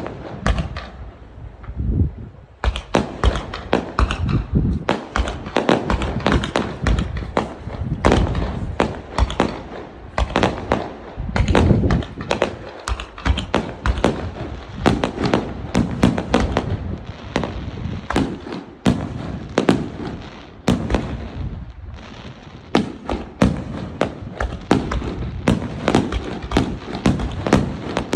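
Fireworks going off in a dense barrage, several bangs a second, after a few scattered bangs in the first two seconds.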